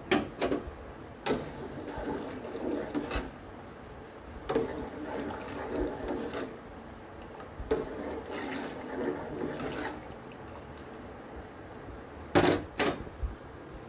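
Metal spoon stirring milk in an aluminium saucepan, the liquid sloshing in spells of a couple of seconds. Sharp clinks of the spoon against the pan at the start, and a loudest pair near the end.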